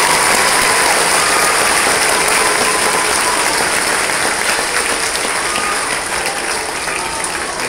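A large audience applauding, the clapping slowly dying down toward the end.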